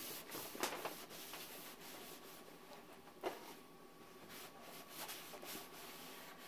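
Faint rubbing of a paper towel wet with denatured alcohol being wiped across a sanded carbon-fibre panel, with a few light ticks along the way. It is the solvent wipe that lifts grease, oils and sanding dust off the surface before a coat of epoxy.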